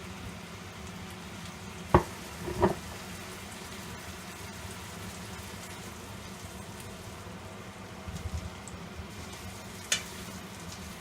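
Chicken pieces sizzling steadily in butter and olive oil in a skillet. Sharp knocks come about two seconds in, again just after, and once more near the end.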